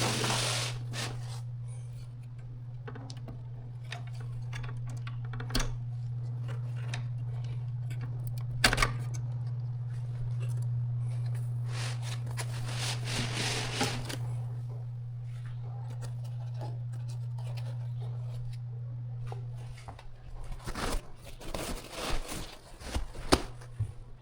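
Hands working inside an electronic instrument while removing its RTC module: scattered sharp clicks and scraping, rustling handling noise from tools and parts, over a steady low hum that drops out near the end.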